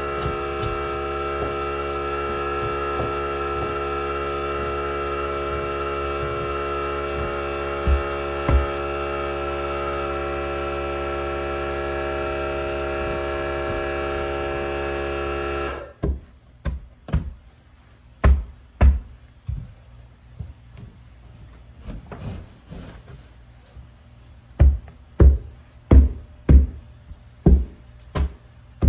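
Air compressor motor running with a steady hum, then cutting out abruptly about two-thirds of the way through. After that comes a string of sharp, irregularly spaced knocks from working the carpet onto the stairs, with the loudest cluster near the end.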